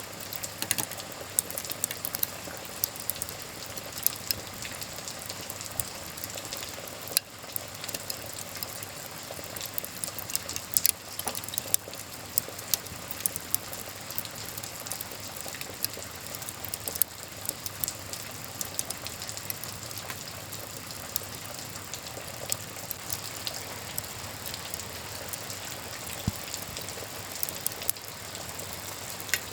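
Wood fire crackling, with frequent sharp pops and snaps, over a steady hiss of rain.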